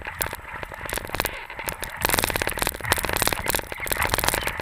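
Skis scraping and crackling over deep snow while a dog team tows the skier, a dense run of rough noise that gets louder about two seconds in.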